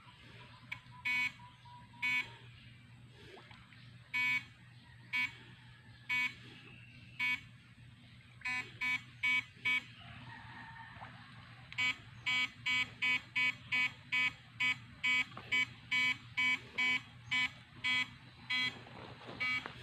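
Electric fishing device giving short buzzing pulses, scattered at first, then about two a second in the second half, over a steady low hum.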